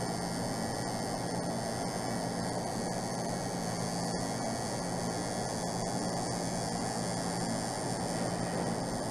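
Tattoo machine running with a steady hum as its needle lines a tattoo outline into skin.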